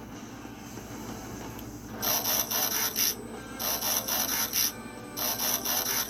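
Transformers-style transformation sound effect: after a low steady background, three rasping, whirring mechanical bursts of about a second each, starting about two seconds in.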